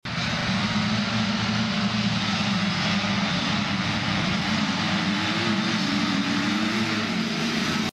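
Youth motocross bike engines running on the track, a steady loud drone with one engine climbing in pitch about five seconds in and dropping back near the end.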